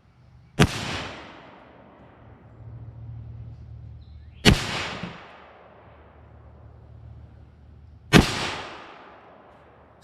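Three rifle shots fired about four seconds apart, each a sharp crack followed by about a second of echo fading away: a three-shot group fired while sighting in the rifle after an elevation adjustment.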